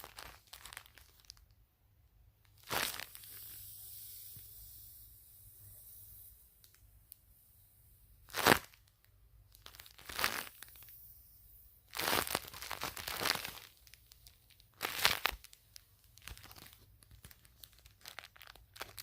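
Plastic bag squishy stuffed with cotton balls crinkling as it is squeezed and handled, in irregular rustling bursts with quiet gaps between, the loudest about eight seconds in.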